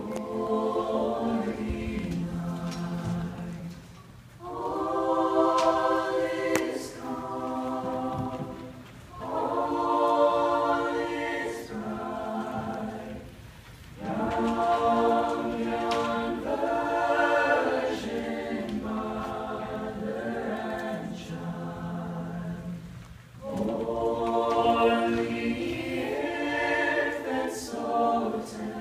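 A choir singing in long held phrases, with short breaks between them.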